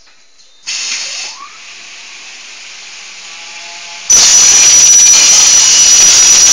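A short hiss about a second in, then, about four seconds in, the cutting saw of a rock wool sandwich panel line starts suddenly and runs loud and steady with a high whine.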